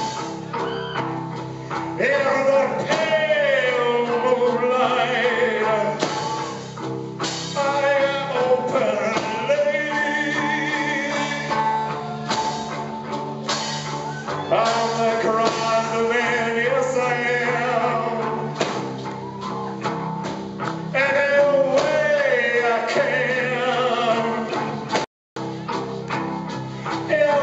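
Live rock band playing with a male lead vocal singing over guitars and drums. The sound drops out completely for a split second near the end.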